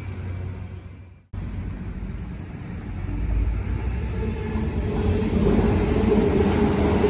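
Sydney Trains electric train running, its rumble growing steadily louder over the last few seconds as it approaches. The sound fades and cuts out completely for an instant about a second in.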